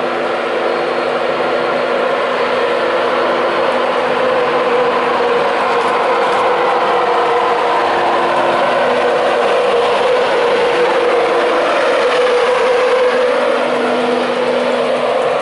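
Class 91 electric locomotive pulling out and passing close by, a steady mechanical hum of its traction equipment and cooling fans over wheel and rail noise. It grows louder as the locomotive draws level, and near the end one tone rises in pitch.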